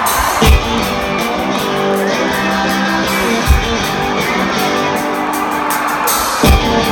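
Live rock band playing a song intro, with a guitar riff over sustained chords and three deep drum hits about three seconds apart.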